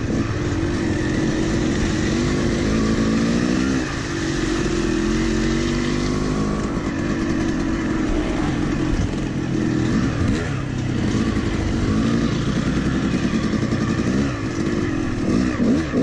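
250cc two-stroke Yamaha YZ dirt bike engine running under way, its pitch repeatedly rising and falling as the rider works the throttle.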